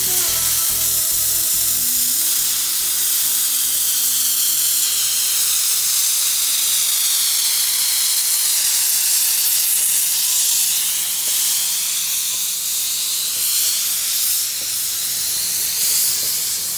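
C12 66 steam locomotive venting steam from its cylinder drain cocks, a loud, steady hiss; the end of a piece of music fades out in the first couple of seconds.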